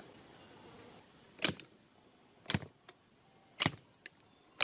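Four sharp knocks about a second apart, over a steady high cricket trill.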